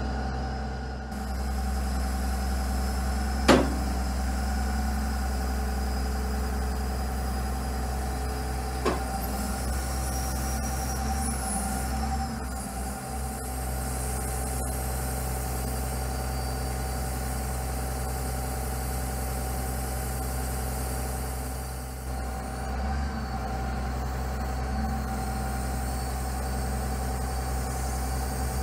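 Engine of a 2009 Laurini Muletrax 2500 crawler carrier running steadily while its hydraulic knuckle-boom crane is folded in. A sharp knock comes about three and a half seconds in, and a smaller one near nine seconds.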